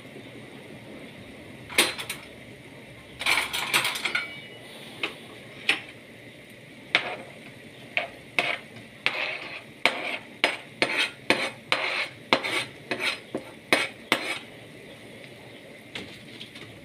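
A metal utensil clatters and scrapes against a stainless steel sauté pan and a cutting board as chopped onion, cilantro and peppers are pushed into the pan. It comes as sharp clicks and knocks: a few scattered ones, then a quick run of about two a second through the middle and later part.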